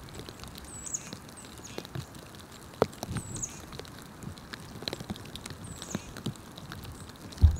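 Small songbirds giving short, high, down-slurred chip calls about every two and a half seconds, over a scatter of light ticks and taps. A single low thump near the end is the loudest sound.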